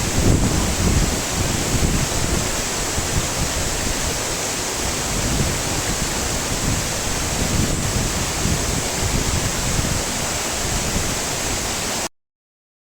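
Heavy rain falling, a dense steady hiss with an uneven low rumble underneath. It cuts off suddenly near the end.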